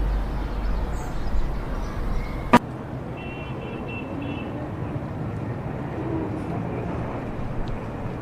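City street ambience: a steady mix of traffic and other street noise. About two and a half seconds in, a sharp click comes as a deep low rumble cuts off, and a faint high tone sounds briefly just after.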